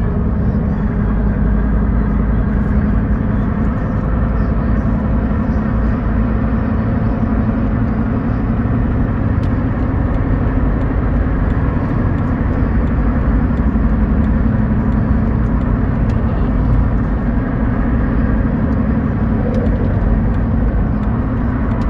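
Car travelling at highway speed: steady tyre and road noise with a low, even drone.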